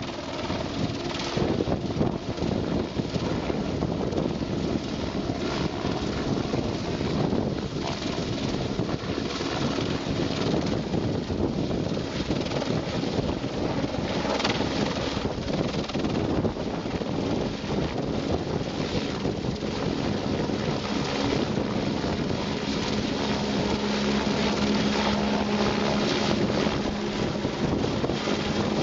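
Helicopter flying: steady rotor and engine noise, with a steady low hum coming in about two-thirds of the way through.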